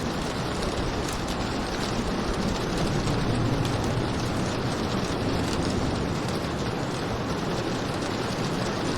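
Steady heavy rain making a dense, even hiss, with a low rumble that swells and fades in the middle.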